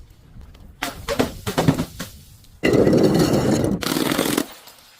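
Things being crushed: a quick run of sharp cracks and snaps about a second in, then a loud, dense crunching rush that breaks off briefly and stops just before the end.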